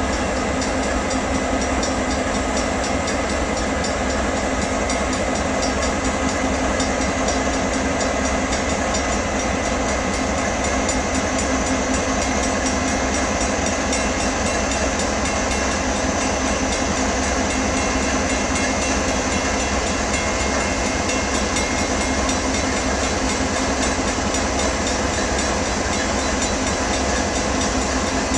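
Diesel-electric freight locomotives idling: a steady engine rumble with a constant hum that does not change.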